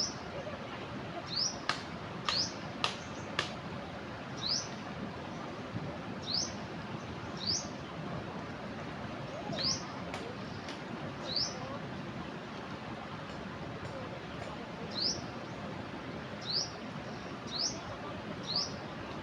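A small bird gives a short rising chirp about a dozen times at uneven intervals, over the steady rush of a flooding river. Four sharp clicks come in the first few seconds.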